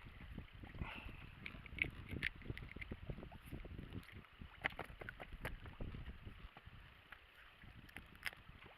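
Wind buffeting the microphone in a low, gusty rumble while choppy water laps against an inflatable boat, with scattered light clicks and taps throughout.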